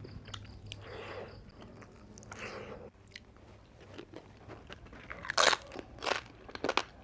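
Close-miked eating sounds: crunching bites and chewing, the louder crisp crunches coming in a cluster a little past halfway.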